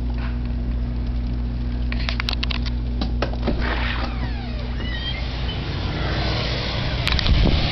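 A steady low mechanical hum under the storm, with scattered clicks. A rushing hiss of wind builds in the second half, and a gust buffets the microphone with a low rumble near the end.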